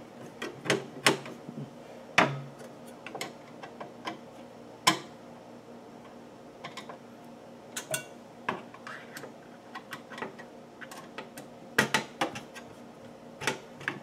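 A hand screwdriver clicking and tapping on the motherboard mounting screws as they are tightened down hand tight in a computer case. Scattered sharp clicks come in small irregular clusters with short pauses between.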